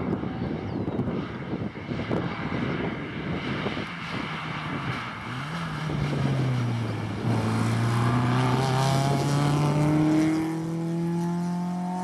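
Rally car engine under hard acceleration: rough rushing road and engine noise at first, then a clear engine note climbing in pitch, dropping sharply once about seven seconds in at a gear change, and climbing again before levelling off.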